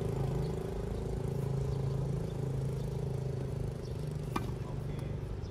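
Steady low engine hum, like a vehicle running nearby. A tennis racket strikes a ball once, sharply, about four seconds in.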